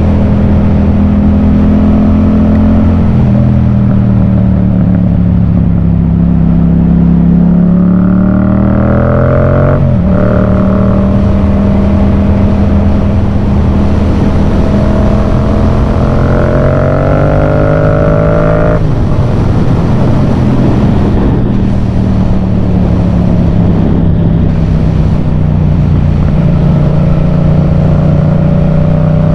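Yamaha MT-07's parallel-twin engine through a Yoshimura full exhaust, ridden on the road. It runs steadily and revs up twice, about eight seconds in and again around sixteen seconds in, each climb ending in a sudden drop in revs.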